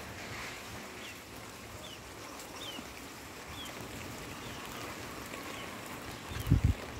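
Faint short high chirps, typical of a small bird, repeating every half second or so over a steady background hiss. A single low thump near the end is the loudest sound.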